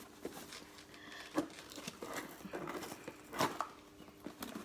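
Paper and plastic packaging of a phone box being handled: light crinkling and rustling with a few soft clicks and knocks.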